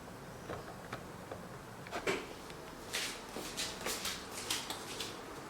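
A few light clicks and a louder knock, then a run of quick rustles and taps as small objects are handled and set in place.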